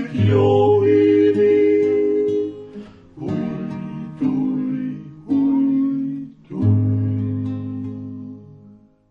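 Traditional folk music on acoustic guitar closing a song: a few strummed chords, each left to ring, the last one fading away to silence near the end.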